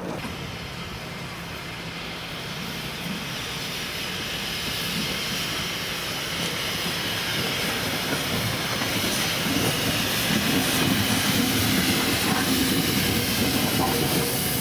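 Steam-hauled train approaching, a steady rushing noise growing gradually louder with no clear exhaust beat.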